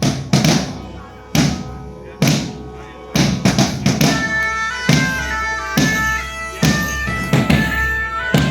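Music: a slow, steady drumbeat of about one hit a second, joined about three seconds in by a bagpipe melody that carries on over the drum.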